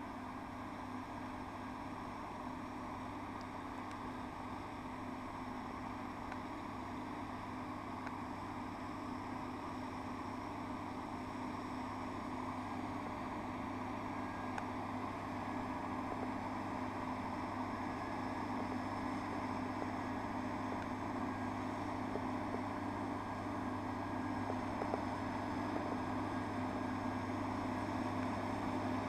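John Deere 6930 tractor's six-cylinder diesel engine running steadily under load while pulling a mounted plough, holding one pitch and slowly growing louder.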